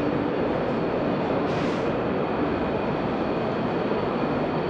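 Steady rumbling din at an even level, with a brief hiss about one and a half seconds in.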